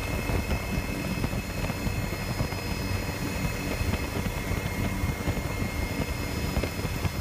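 Helicopter engine and rotor noise, a steady drone with a thin high whine running over it.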